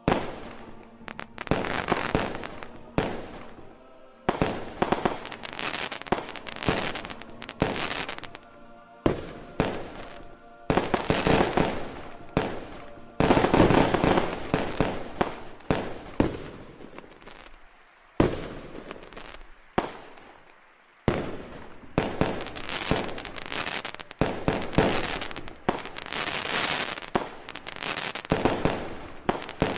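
Aerial firework shells bursting one after another in a public display, each a sharp bang that fades away. The bursts come in quick volleys, densest and loudest about halfway through, with a couple of short lulls later on.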